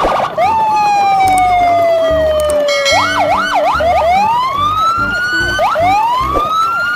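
Electronic siren sounds: a long falling tone, then a series of rising whoops, over a fast continuous warble, with a low electronic tune underneath.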